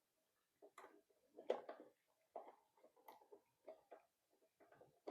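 Faint, irregular light clicks and scrapes of a screw being turned with an Allen wrench into a plastic bracket.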